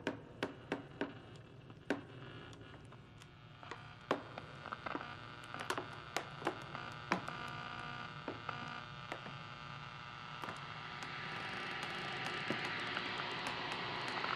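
Static hiss and hum from old radios, broken by scattered sharp clicks; the hiss grows louder from about ten seconds in.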